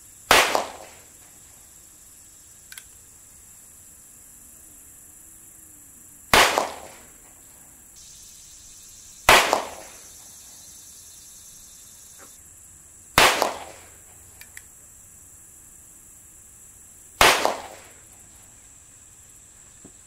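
Five sharp pistol shots from a North American Arms Sidewinder mini revolver firing CCI Mini Mag .22 LR through a 2.5-inch barrel, spaced irregularly three to six seconds apart, each with a brief ringing tail.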